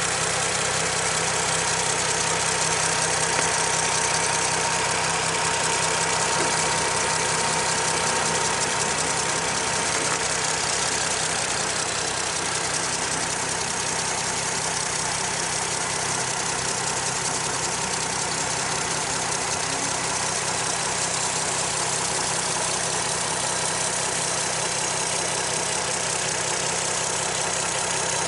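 Car petrol engine idling steadily after a repair, heard from just above the open engine bay.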